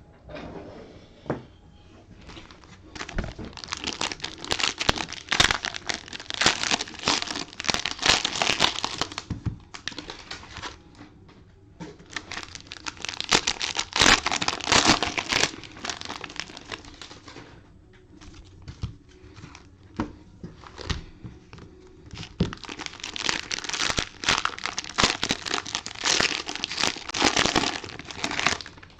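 Crinkly plastic wrapping being handled and torn, in three long stretches of dense crackling with a few scattered clicks between them.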